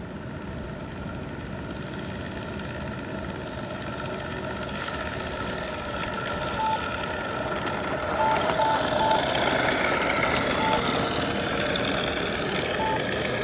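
Flightline Corsair F4U-1A RC warbird with an onboard engine-sound system and electric-driven propeller, running steadily on its landing approach with some throttle held and growing louder as it comes in. About six short, high beeps sound in the second half.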